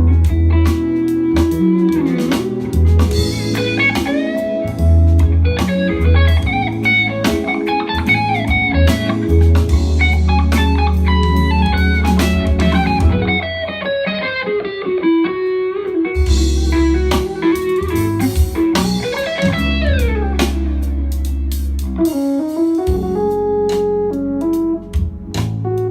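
Instrumental music with a lead guitar playing a bending, gliding melody over bass and drums, played back through a pair of Klipsch RP-150M bookshelf speakers and picked up by a phone's microphone in the room. The bass drops out briefly about halfway through, then comes back.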